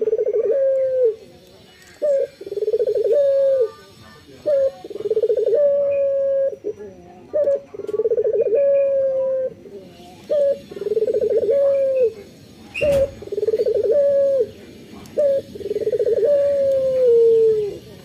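A male Barbary dove (ringneck dove) cooing over and over, about six calls. Each call is a short note followed by a long coo that starts with a rolling tremble and slides down at the end. A single sharp click sounds a little past the middle, and faint high chirps are heard between the coos.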